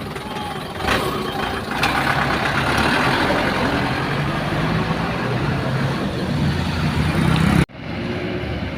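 Large bus running close by, a dense engine and road noise with a low hum that swells after about two seconds. The sound breaks off for an instant near the end, then resumes.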